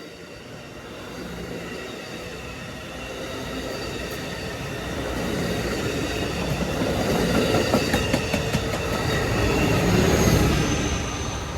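A train approaching and passing close by, growing louder to a peak near the end before starting to fade, with steady high-pitched wheel squeal and rhythmic clicks from wheels crossing rail joints as it goes by.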